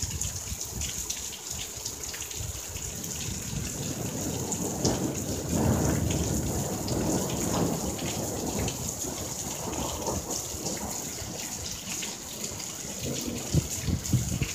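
Heavy rain falling steadily, a continuous hiss. A low rumble swells about five seconds in and fades over several seconds, with a few sharp spikes near the end.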